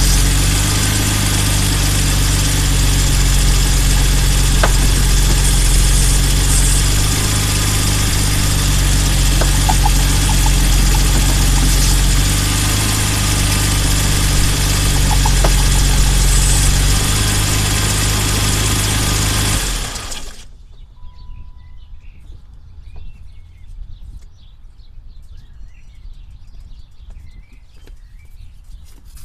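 BMW E34 M5's straight-six engine idling steadily, with a few brief faint squeaks that the owner takes for a slipping belt under steering load. The engine is switched off about 20 seconds in and stops suddenly.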